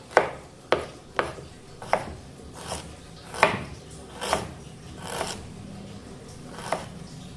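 A knife chopping fresh turmeric root, about nine sharp, uneven strikes at roughly one a second.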